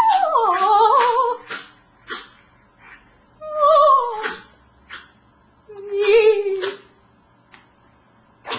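A woman singing in an operatic style, with a small dog howling along. The sound comes in three wavering, mostly falling phrases separated by short pauses.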